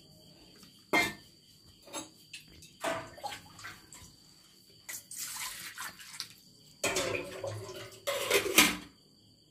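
Water splashing and pouring in a kitchen vessel, with scattered clinks, as hot boiled eggs are put into water to cool. The loudest splashes come about seven and eight and a half seconds in.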